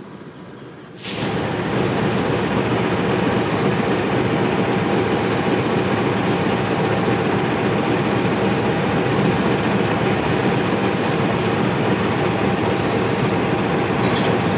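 Diesel locomotive engine of a passenger train running steadily and loudly as the train departs the station, starting suddenly about a second in. A high, rapid pulsing, about four to five pulses a second, runs over it.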